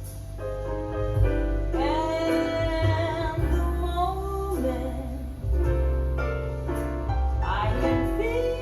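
Slow jazz ballad: a woman sings long held notes with vibrato over piano accompaniment.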